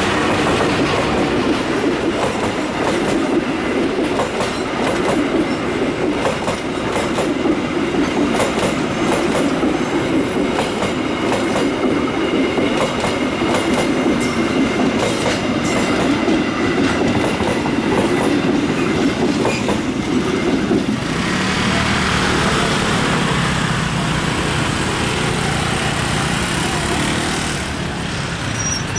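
Passenger coaches of a train rolling past close by, wheels clattering over the rail joints in a steady rumble. About twenty seconds in, the rumble gives way to a thinner, hissier rolling noise.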